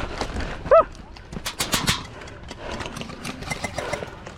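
Footsteps of a person running over the ground, a rhythmic patter of small knocks and clicks, with a brief shouted call a little under a second in.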